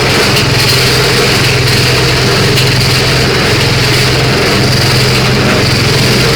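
Engine-driven grass chopper (chaff cutter) running steadily, a loud constant drone.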